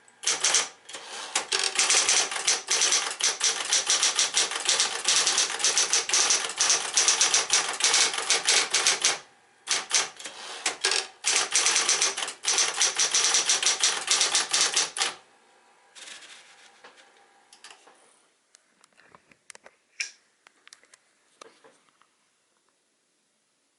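Smith-Corona Coronet Electric 10 electric portable typewriter typing fast: a rapid stream of keystrokes with two brief pauses, stopping about fifteen seconds in, after which only a few faint scattered clicks remain.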